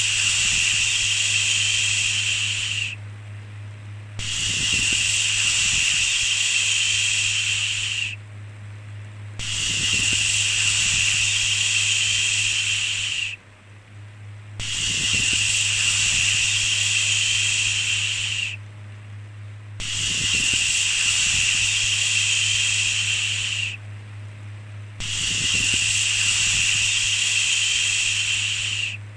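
A long, steady 'shhh' shushing hiss repeated about six times, each lasting about four seconds with a second's pause between them, over a constant low hum.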